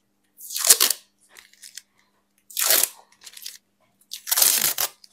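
Masking tape being peeled off glazed wall tiles: three ripping pulls about two seconds apart, with faint crackles of the tape between them.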